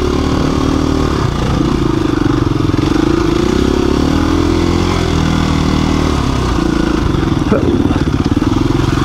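KTM 350 EXC-F dirt bike's single-cylinder four-stroke engine running at slow trail pace, its pitch rising and falling gently with the throttle.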